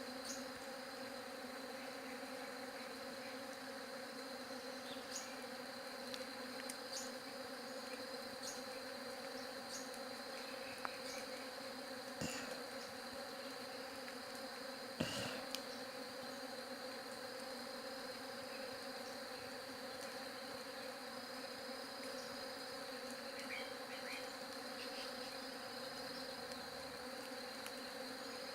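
Bees buzzing: a steady, continuous hum of many bees. A few faint clicks and one short knock about halfway through.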